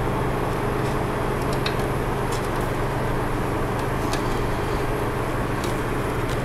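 Steady low mechanical hum, even in level throughout, with a few faint ticks over it.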